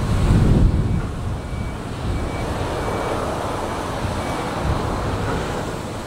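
Ro-Ro passenger ferry manoeuvring close in to its berth: a steady low rumble of the ship's machinery and churned water, with wind on the microphone.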